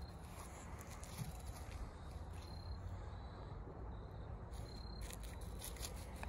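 Faint rustling of footsteps through dry fallen leaves and grass over a low steady rumble, with a few short high chirps now and then.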